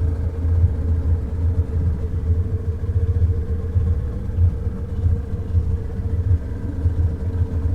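Boat engine running steadily: a constant low rumble with a steady hum over it.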